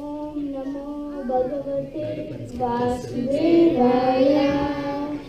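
A child's voice singing a devotional prayer in long held notes. Other voices join in, and the singing grows fuller and louder about three seconds in.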